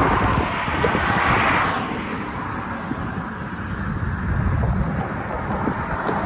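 Road traffic noise with wind on the microphone: a steady rushing hiss over a low rumble, louder for the first two seconds and then settling.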